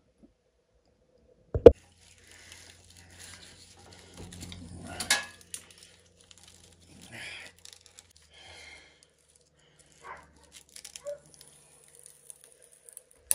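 Copper windings being pulled and torn out of a cut-open electric motor stator with pliers: irregular scraping, rustling and crinkling of stiff wire. A single sharp metal knock about a second and a half in is the loudest sound.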